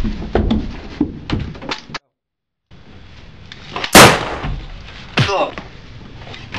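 A single loud gunshot about four seconds in, followed about a second later by a short falling cry. Scattered knocks and thumps come before it, and the sound cuts out completely for under a second near the two-second mark.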